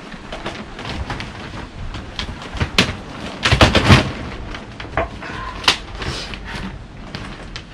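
Irregular knocks and clattering over a rustling background, loudest in a cluster of heavy thumps about three and a half to four seconds in, with sharp single knocks shortly before and after.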